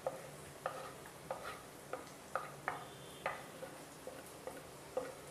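Plastic spatula scraping and knocking chopped carrot and capsicum off a wooden chopping board into a hot kadai: about a dozen short knocks, roughly two a second, some ringing briefly against the pan, over a faint sizzle of frying onion.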